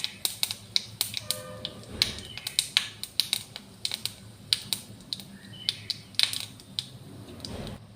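Whole cumin and coriander seeds crackling in hot mustard oil in a kadhai: irregular quick pops and snaps over a low sizzle, the sign that the oil is hot enough for the tempering.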